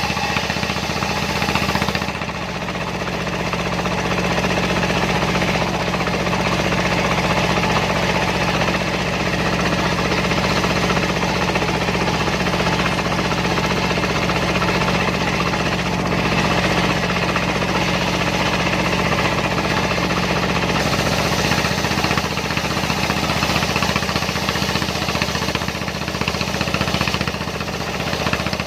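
Dongfeng diesel engine running steadily with a knocking beat, driving a homemade circular-saw sawmill rig.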